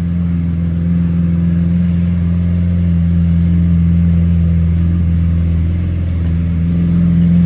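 Lamborghini Aventador's V12 engine idling: a steady low drone.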